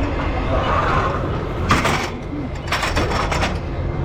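An engine running steadily with a low rumble, with two short bursts of hissing clatter about two and three seconds in.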